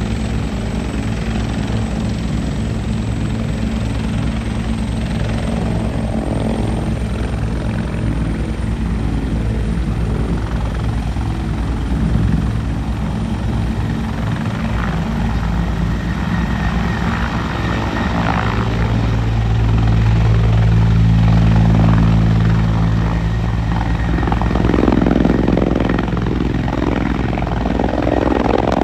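Bell 412EPi helicopter running at flight power: the four-blade main rotor beats over a steady turbine whine as it lifts off the ground into a low hover. The rotor sound swells about two-thirds of the way through as it turns in the hover.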